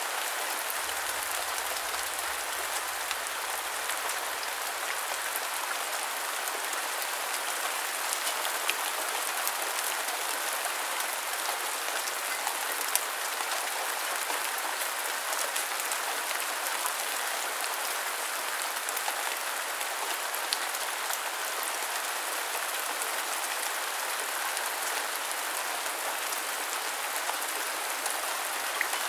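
Steady rain falling, an even hiss of drops with a few sharper drip ticks scattered through it.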